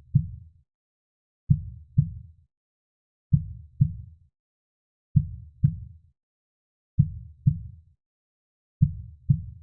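Heartbeat sound: low double thumps, lub-dub, repeating evenly a little under every two seconds, with silence between the beats.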